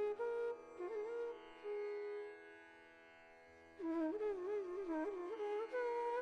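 Background instrumental music in Indian classical style: a sliding, ornamented melody over a steady drone, thinning to the drone alone for about a second and a half midway before the melody returns.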